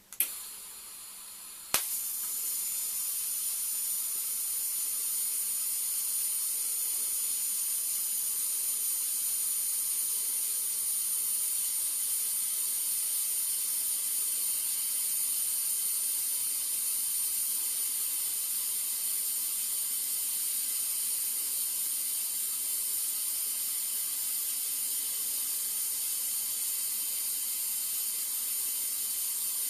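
TIG welding arc on stainless steel fittings: a sharp click and a softer hiss, then a second click about two seconds in as the arc strikes, followed by a steady high hiss for the rest of the time.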